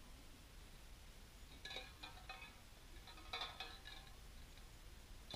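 Tin cans clinking and rattling faintly in two short bouts, shaken against a horse to get it used to the noise. A sharp click comes right at the end.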